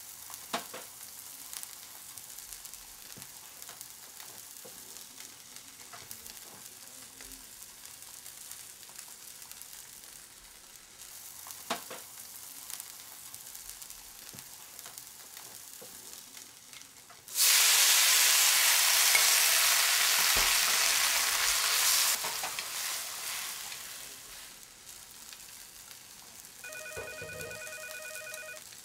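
Food sizzling in a hot pan, starting suddenly and loudly after a stretch of faint kitchen hiss and light clicks, then dying down after about five seconds. Near the end a telephone starts ringing with a pulsing electronic ring.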